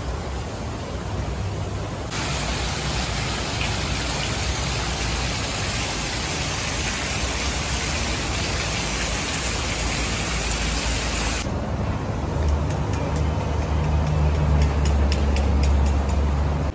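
Steady hiss of background noise, brighter for several seconds in the middle. A heavy low rumble and a run of light ticks come in over the last few seconds.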